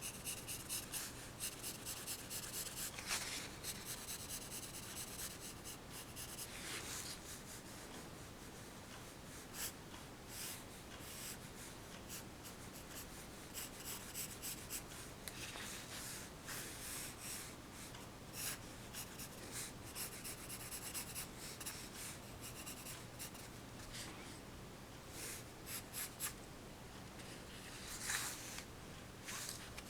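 Pencil sketching on paper: quick, closely repeated hatching strokes for the first several seconds, then slower, sparser strokes, with one louder stroke near the end.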